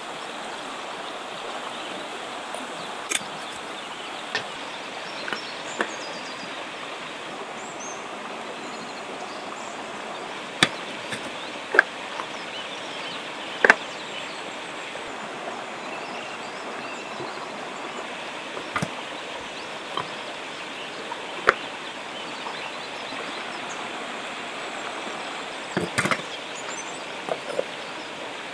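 Steady rush of a river, with about a dozen sharp clinks and taps scattered through it as small ceramic spice pots, their lids and metal containers are handled, several in quick succession near the end.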